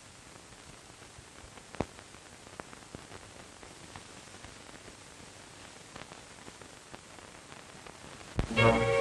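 Faint steady hiss of an old film soundtrack, with a few scattered clicks. Near the end, orchestral music with brass comes in loudly.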